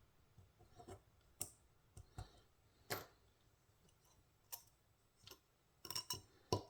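Scattered light clicks and taps of the small metal parts of a disassembled folding knife (titanium handle scales, blade, pivot hardware) being handled and set down, irregular, with a quick cluster near the end.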